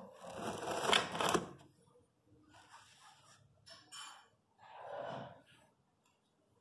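Rustling and scuffing as a small dog shifts on a shaggy chenille mat and is handled. The loudest burst comes about a second in, followed by a few shorter, softer ones.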